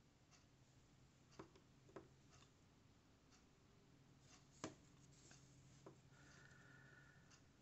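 Near silence: faint room hum with a few soft clicks as a metal yarn needle is drawn through crocheted yarn to weave in the tail, the loudest click about four and a half seconds in.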